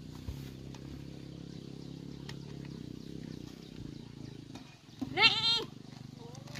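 A steady low hum, then about five seconds in a single short, loud animal call with a wavering pitch.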